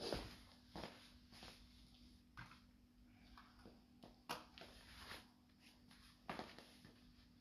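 Near silence: quiet room tone with a faint steady hum and a few soft, scattered knocks, the loudest right at the start.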